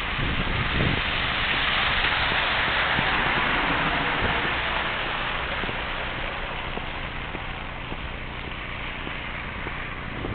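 A steady hiss of wind noise on the microphone, a little stronger in the first few seconds and easing off toward the end.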